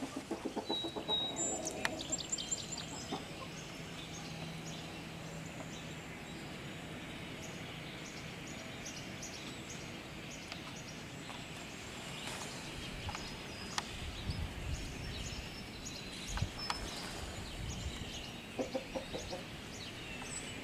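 Chickens clucking, in bursts that are loudest in the first two seconds and again near the end, with short high-pitched chirps scattered throughout.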